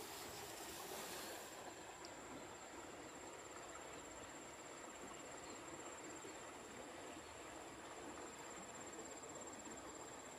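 Faint riverside ambience: a shallow river running over rocks, with one continuous high insect trill throughout. A louder hiss fills the first second and a half.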